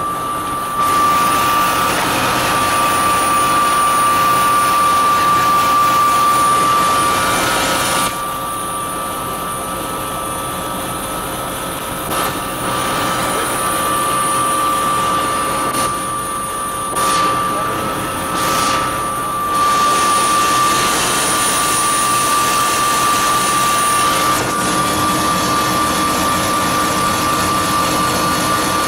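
Turbine helicopters running on the ground with rotors turning: a steady high engine whine over the rotor noise. The loudness steps down and back up a few times.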